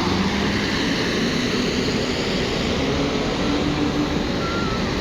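Steady engine and traffic noise of buses and other vehicles in a slow traffic jam, a continuous even noise with a faint engine hum under it.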